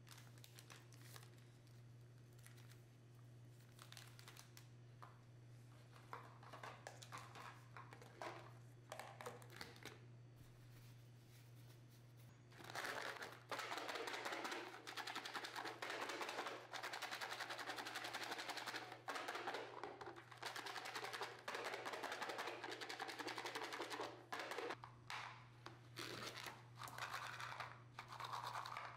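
Roasted chickpeas rattling inside a plastic tub as they are mixed with seasoning powder to coat them: scattered clicks at first, then a dense, continuous rattle for about twelve seconds from about halfway in. A low hum runs underneath.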